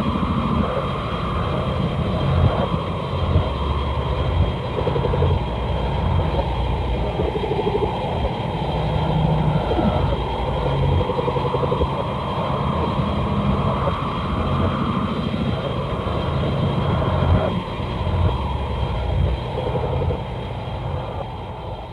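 Film sound effect of Hedorah in its Flying Stage form: a continuous, heavy mechanical rumbling drone with wavering pitch bands and thin steady high tones above it, fading out near the end.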